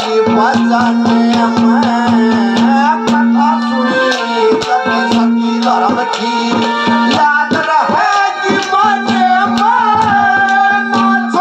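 Live Haryanvi ragni music: quick hand-drum strokes under a melody line, over a low note that is held for several seconds at a time.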